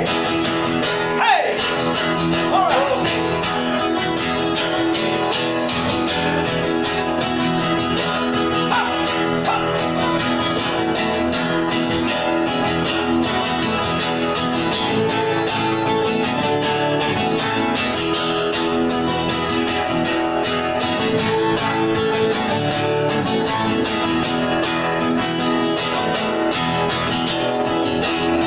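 Acoustic guitar strummed in a steady rhythm, an instrumental stretch of a song with no singing.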